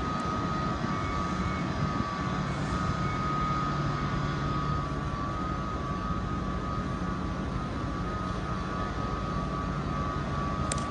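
Trains standing at a platform with their engines and equipment running: a steady low hum under a steady high whine. There is a single click near the end.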